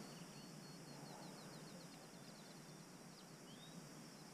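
Faint outdoor ambience of a songbird singing a quick trill of short high notes, a little over two seconds long, with one longer sliding note near the end, over a steady high-pitched hum.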